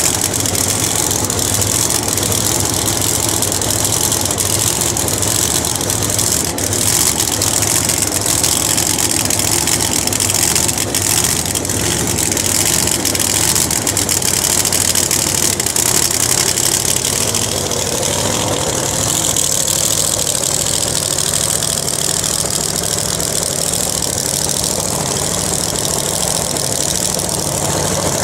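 Supercharged V8 drag-race engine of a radial-tire Corvette idling, loud and steady.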